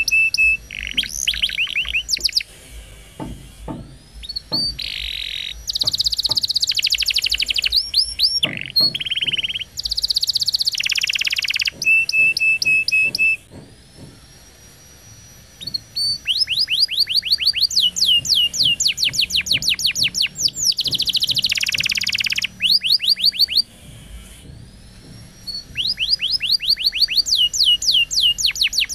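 Domestic canary singing long phrases of fast trills of repeated falling notes, level whistled notes and buzzy rolls. There are two short pauses, one a little before the middle and one about three-quarters of the way through.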